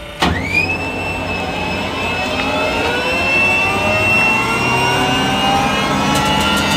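Jet engine starting up: a whine cuts in suddenly and shoots up in pitch, then a stack of tones keeps climbing slowly as the engine spools up and grows louder.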